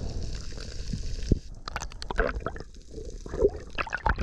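Water gurgling and sloshing around an underwater camera. It starts as a steady hiss and from about a second and a half in turns to irregular bubbly bursts.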